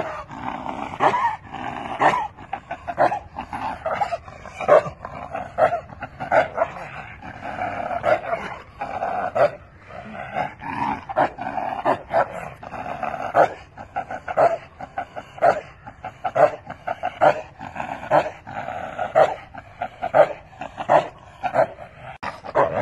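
Bakerwal dog barking over and over, about one to two barks a second.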